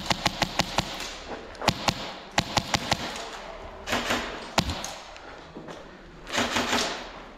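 Airsoft guns firing in quick strings of sharp cracks, about seven a second through the first second and a few more around two seconds in. Two short rushing noises come about four seconds and six and a half seconds in.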